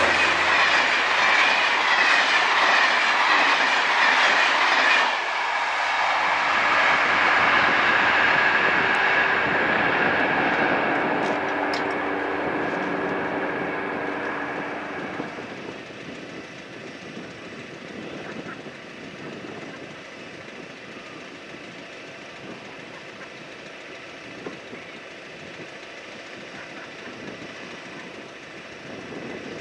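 Intercités train of Corail passenger coaches behind a CC 72100 diesel locomotive passing close at speed, with loud rushing wheel-on-rail noise for about the first five seconds. The sound then fades away over the next ten seconds as the train recedes.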